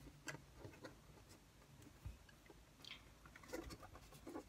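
Faint, scattered light clicks and taps of popsicle sticks being handled and woven over and under one another on a tabletop.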